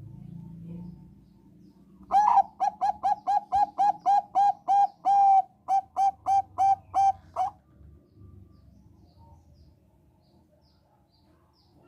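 Zebra dove of the Thai 'Bangkok' perkutut strain singing: a quick run of about eighteen short, clipped cooing notes, about three a second, beginning about two seconds in and lasting about five seconds.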